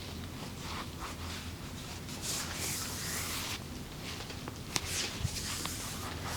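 Massage strokes: hands rubbing and sliding over skin and clothing in short rustling swishes, with two brief sharp clicks about five seconds in, over a steady low hum.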